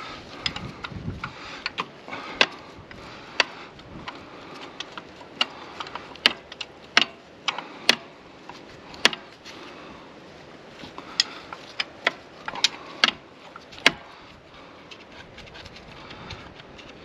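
Sharp metallic clinks of a steel spanner working the rusty bell housing bolts of a Fordson Super Major tractor, a click every half second to a second, over a steady rush of wind.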